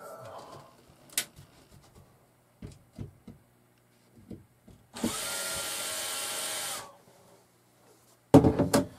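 Cordless drill-driver working a screw in a motorhome's ceiling fixture: a short spin at the start, light clicks of handling, then one steady run of about two seconds a little past halfway. A louder burst of sound near the end.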